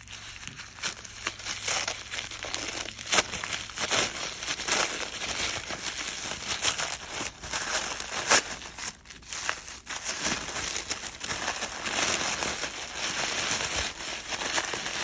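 Packaging being crinkled and torn by hand while unwrapping a product from a box: a continuous dense crackle with sharp snaps, the loudest a little after 3 seconds and about 8 seconds in.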